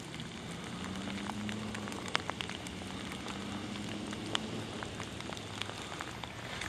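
Steady rain falling, with scattered sharp ticks of drops striking close by and a faint low hum underneath.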